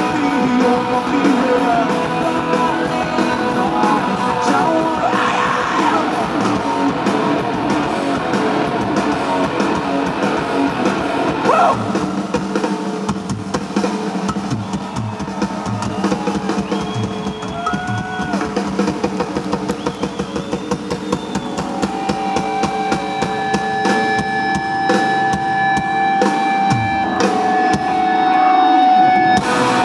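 Rock band playing live and loud: electric guitar over a pounding drum kit.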